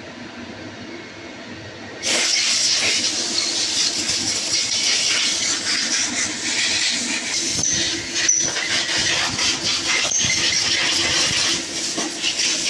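A loud, steady hiss that starts abruptly about two seconds in, over a faint steady hum.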